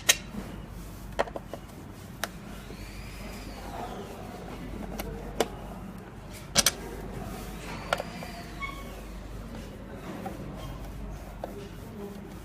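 Scattered sharp clicks and knocks, about half a dozen spread apart, as an old pipe-and-wire connector is worked loose and taken off a machine by hand. There are two faint short squeaks, and a low steady hum runs underneath.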